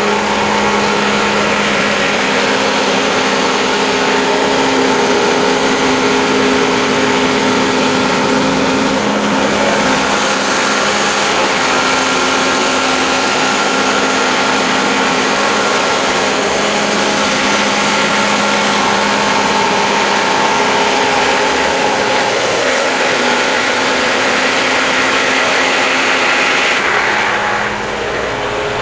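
Antique Corley 395 circular sawmill sawing a board off a large log, the blade cutting steadily under load with its drive running. The sound eases a little near the end.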